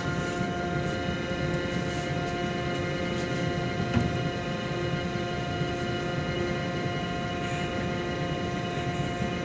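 Steady drone of a cargo ship's machinery heard on the stern deck: a constant low rumble with several fixed hum tones. A single short knock sounds about four seconds in.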